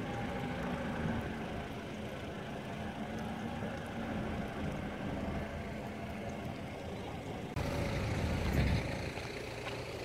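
Mitsubishi Pajero's engine running under load as the SUV crawls up a steep rocky slope, a steady low drone. Near the end the sound jumps suddenly to a louder, closer low rumble.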